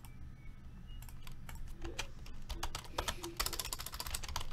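Typing on a computer keyboard: quick keystroke clicks, few at first, then coming thick from about a second in, with a fast run of keys near the end.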